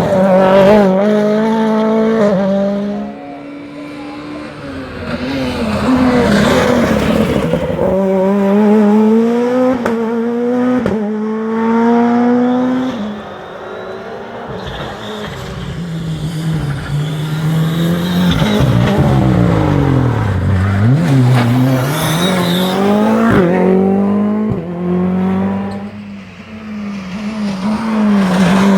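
Rally cars at full throttle on a stage, engines revving high and dropping sharply through gear changes and lift-offs, several passes one after another with brief quieter gaps between them.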